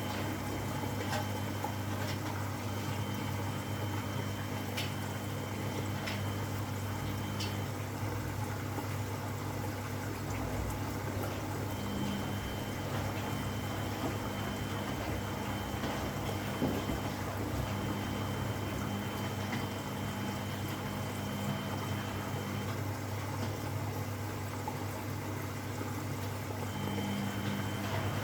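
Washing machines running mid-wash: water running and sloshing over a steady low hum, with a faint high whine that comes and goes and a few light ticks in the first few seconds.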